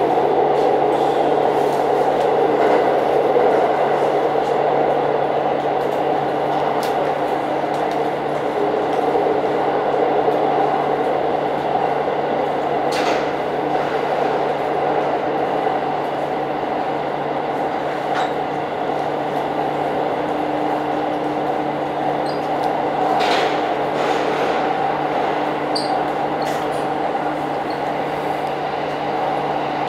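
Diesel railcar running at speed through a tunnel, a steady rumble of engine and wheels on rail heard from inside the front cab. Twice a brief higher-pitched noise rises over it, once about halfway through and again some ten seconds later.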